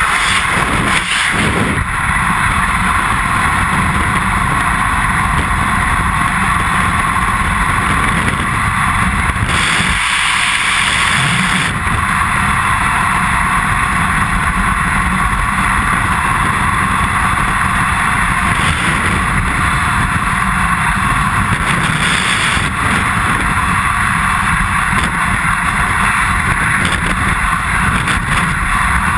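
Loud, steady rush of freefall wind buffeting a helmet-mounted camera's microphone, swelling briefly about ten seconds in.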